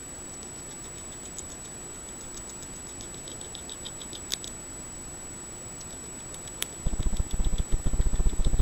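Beaver gnawing wood from a tree trunk: faint rapid ticking of incisors scraping the wood with a couple of sharp clicks. About seven seconds in, the gnawing becomes loud, rapid, low strokes.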